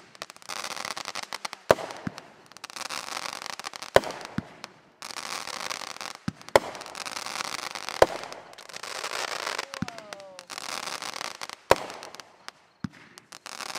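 Aerial firework mortar shells going off: a series of sharp bangs every one to three seconds, the loudest five or so standing out, each followed by a few seconds of crackling.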